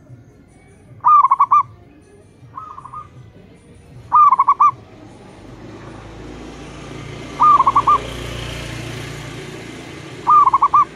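Zebra doves (perkutut) cooing back and forth: four loud phrases of three to four quick rolling notes a few seconds apart, with a fainter phrase between the first two. A low rumble swells and fades through the middle.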